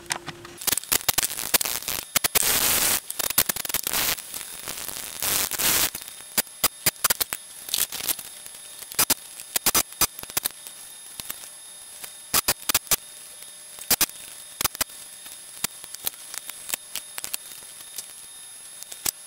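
Aerosol spray of WD-40 hissing in several bursts onto the switch and volume-control board of a Pioneer SX-737 receiver to clean the switches and pots, the longest bursts about two and five seconds in. After that come many sharp, irregular clicks.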